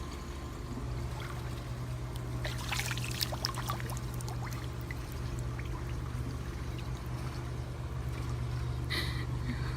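Water splashing and trickling in a swimming pool, busiest about three seconds in, over a steady low hum.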